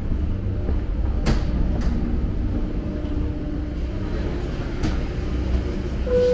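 Steady low rumble of a moving vehicle, with a few sharp clicks and knocks, and a short beep starting just before the end.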